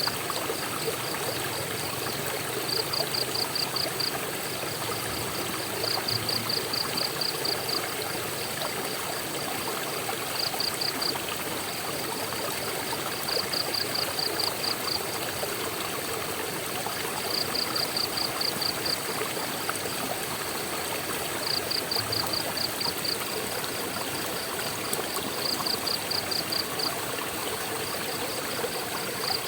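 Steady rush of a waterfall's flowing water. Over it, a high pulsed chirp comes in short runs of about six pulses a second, each run lasting a second or so and repeating every few seconds.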